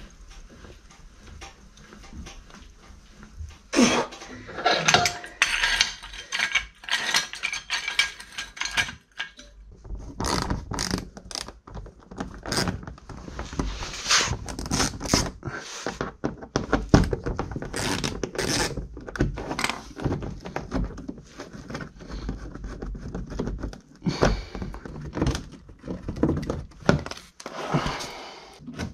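A car jack being worked to lift a car, with a loud knock and a run of metal clanks, then a screwdriver working screws out of the plastic engine undertray, with clicks, knocks and rattles of the tool, the screws and the panel.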